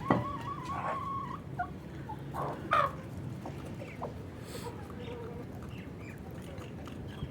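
Aseel chickens clucking and calling softly, with one held high call lasting about a second near the start and a few short calls shortly after.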